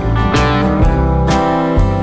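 Background music led by guitar, with plucked notes on a steady beat.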